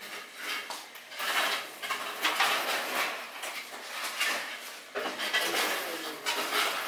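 Metal pan of candy syrup floating in a tub of cooling water, with a metal utensil scraping and knocking in the pan and water sloshing against the tub, in irregular surges.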